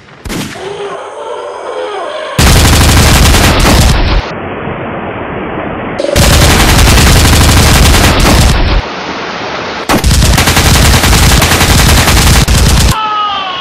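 Rapid automatic gunfire in three long bursts of two to three seconds each, a couple of seconds apart.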